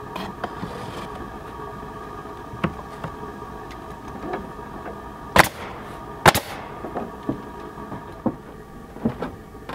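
Pneumatic nail gun firing twice, about a second apart, driving nails into cedar shingles, with lighter taps and clicks around it. An air compressor hums steadily underneath.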